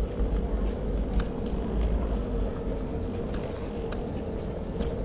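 Outdoor street ambience with a constant low rumble and a steady hum, likely vehicle traffic, and light, irregular clicks scattered throughout.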